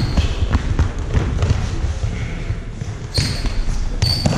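Futsal ball being kicked and played on a sports-hall floor: a string of short knocks from the ball and players' footsteps, echoing in the hall. A short high squeak near the end, like a shoe on the hall floor.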